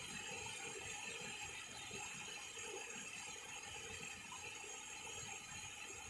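Small waterfall pouring over mossy rocks into a pool: a faint, steady rush of falling water.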